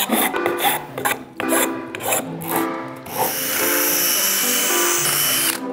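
A blade scraping in short strokes along a 3D-printed plastic part, then a cordless drill running steadily for about two and a half seconds, sanding the inside of the part. Background music throughout.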